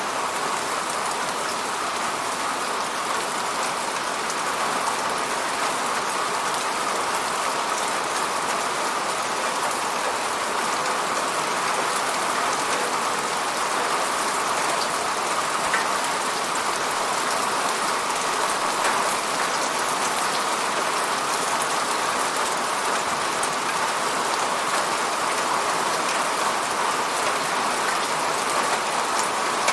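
Steady rain falling, an even hiss with scattered drop ticks and no change in strength.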